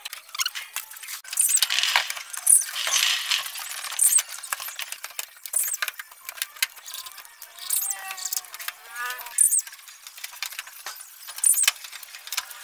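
Many quick clicks and light clinks of cutters snipping plastic mesh on a steel-rod cage frame. A few short chirping calls come in past the middle.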